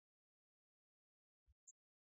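Near silence, broken by a faint low click about one and a half seconds in and a tiny high tick just after it.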